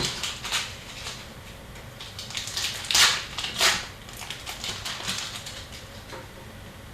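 Hockey trading cards being handled: a run of soft flicks and rustles as the cards are slid and flipped past one another, with two louder swishes about three seconds in, half a second apart.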